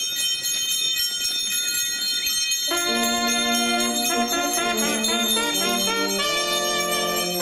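Small hand bells jingling steadily, as rung at the Eucharistic blessing in a Corpus Christi procession. About three seconds in, instruments join with a slow hymn tune, its held notes stepping from chord to chord.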